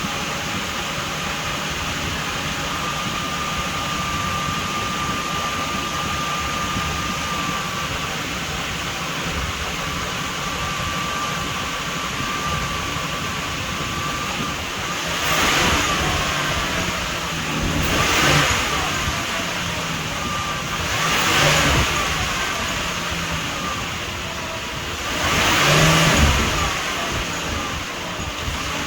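Ford Explorer 4.0 L SOHC V6 engine running at idle on a newly fitted drive belt, tensioner and idler pulley, with a thin high whine in the first half. Then it is revved four times, a few seconds apart, as a test for a grinding noise from the belt drive.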